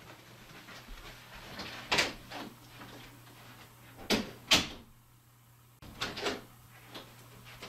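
A person moving about off in the house, with several sharp knocks and clunks of household doors or drawers being handled, the loudest two close together about four seconds in, over a steady low hum.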